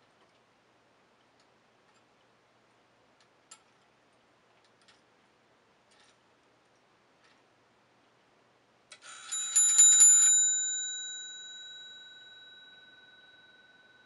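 Faint clicking of the automaton's rotary-dial clockwork as its ring is pulled, then about nine seconds in a hammer strikes the brass bell in a quick run for just over a second, like a telephone ringing. The bell rings on afterwards, fading slowly.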